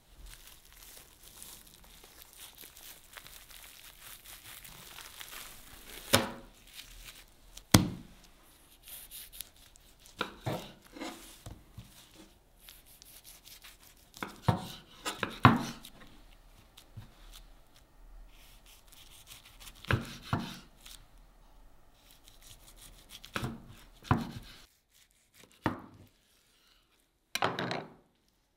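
A kitchen knife cutting through a nori-wrapped sushi roll onto a plastic cutting board: a dozen or so sharp chops at irregular intervals. Before that comes a soft, faint crinkling of hands handling the filling and roll.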